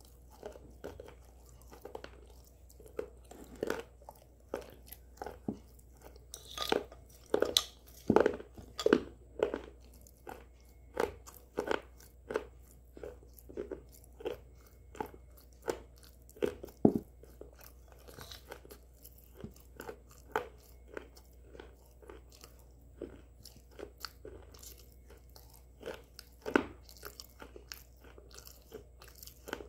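A person chewing something crunchy close to the microphone: crisp crunches about once a second, with a run of louder, quicker crunches a few seconds in.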